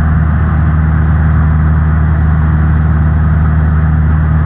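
Cessna 172N's four-cylinder piston engine and propeller running steadily, heard as a loud, even drone from inside the cockpit.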